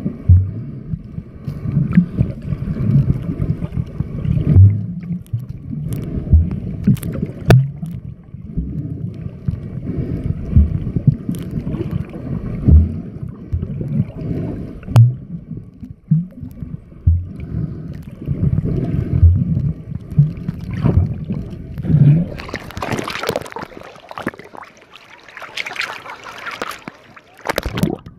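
Muffled underwater sound picked up by a submerged camera: low rumbling with irregular dull knocks. A brighter gurgling and splashing wash comes in about two-thirds of the way through, as the camera nears the surface.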